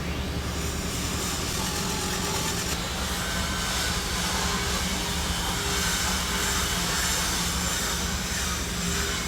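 Flux-cored arc welding: the arc gives a steady crackling hiss as the bead is run along a lap joint.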